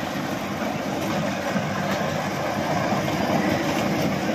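A small children's ride-on train running steadily along its circular rail track.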